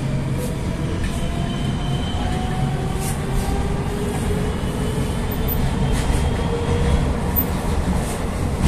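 Rusich (81-740/741) articulated metro train accelerating away from a station, heard from inside the car: a steady low rumble of the running gear under a whine from the traction drive that slowly rises in pitch. Near the end the noise grows louder as the train runs into the tunnel.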